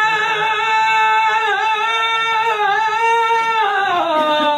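A man singing a Punjabi folk verse unaccompanied, holding one long drawn-out note that wavers slightly and slides down near the end.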